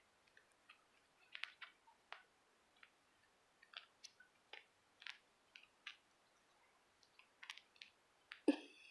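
Faint, scattered scratches and clicks of kittens' claws catching on a fabric blanket and couch cushion as they wrestle and climb. One louder, brief squeak comes near the end.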